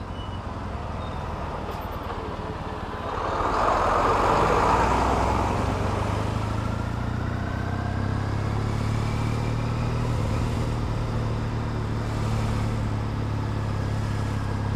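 Triumph Bonneville T100's parallel-twin engine running at low speed as the bike filters between lanes of slow traffic, under a steady rush of road and traffic noise. The noise swells louder about four seconds in.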